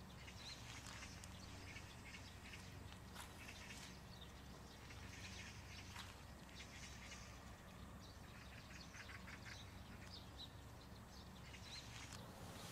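Faint outdoor ambience: small birds chirping now and then over a low steady hum.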